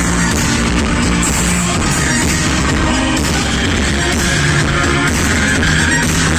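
Loud music with a steady beat and a singing voice.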